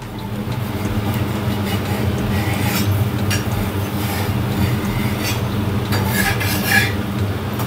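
Metal spatula scraping against a heavy griddle (tava) as it works under a thin rice-flour crepe to loosen and turn it. There are scattered scrapes, the sharpest about three seconds in and again near the end, over a steady low hum.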